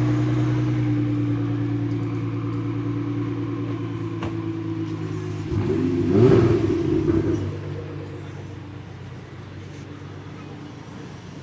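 A sports car engine holds a steady note that slowly fades. About six seconds in it gives a short rev that rises and falls, the loudest moment, then settles to a quieter, steady sound.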